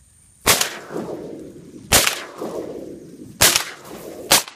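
Four shotgun shots, the first three about a second and a half apart and the last following the third closely, each trailing off in a short echo.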